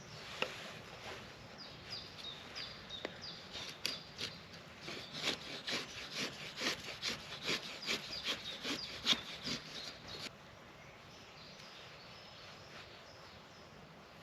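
Folding-knife blade shaving curls off a wooden stick to make feather sticks: a run of sharp scraping strokes, about two a second, that stops abruptly about ten seconds in.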